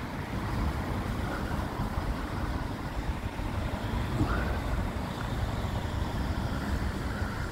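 Road traffic going by: a steady rumble of car engines and tyres.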